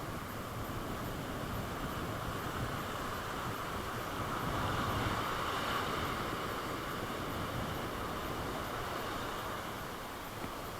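Sea surf washing onto the beach, with wind buffeting the microphone; a wave swells louder about four to six seconds in, then eases off.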